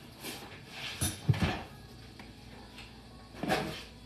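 A kitchen door being opened and shut: a knock about a second in, a heavier thump just after it, and another knock around three and a half seconds in.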